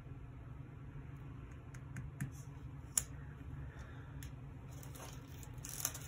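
Faint paper handling as stickers are pressed and smoothed down onto a planner page: a few soft clicks and taps, and a brief paper rustle near the end, over a steady low hum.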